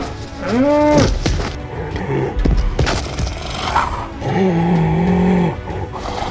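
Cow moo sound effect rising and then held about half a second in, a few sharp knocks over the next two seconds, then a second, longer and lower held call past the four-second mark, over background music.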